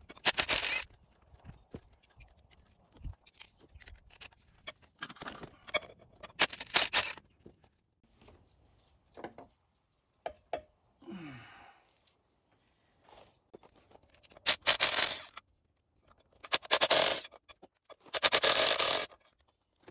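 Cordless power driver running in about six short bursts, spinning bolts out with a socket on a long extension, with scraping and handling of tools and parts in between.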